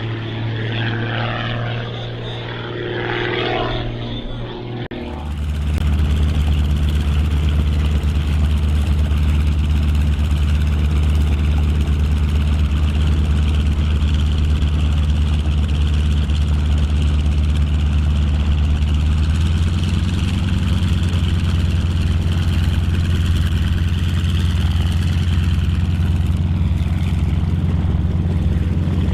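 A propeller-driven aerobatic plane in flight, its engine note gliding in pitch as it climbs. Then, about five seconds in, a North American T-6 Texan's nine-cylinder Pratt & Whitney R-1340 radial engine runs close by on the ground, a steady low drone that shifts slightly about two-thirds of the way through.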